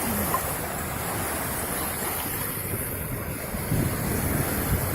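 Surf washing onto the beach, a steady wash of waves, with wind buffeting the microphone.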